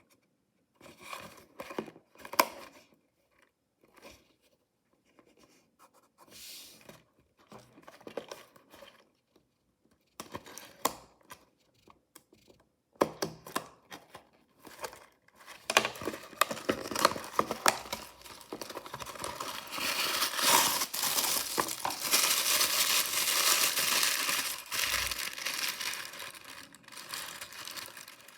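Mystery toy packaging being handled with scattered light taps and rustles, then torn open and crinkled. The crinkling runs without a break from about halfway through and is loudest in the last third.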